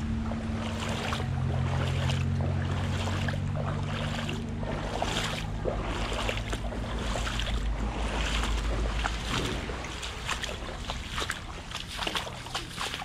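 Rubber boots wading through shallow floodwater, each step splashing and sloshing, about one and a half steps a second. A low steady rumble lies under the steps and fades about three-quarters of the way through.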